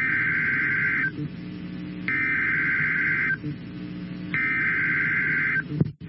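Emergency Alert System SAME header: three bursts of rapid two-tone digital data, each about a second long and a second apart, over a steady low hum. It marks the start of a new weather alert.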